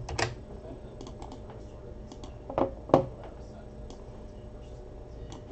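Computer keyboard being typed on: scattered key taps, with a few louder clicks near the start and about halfway through.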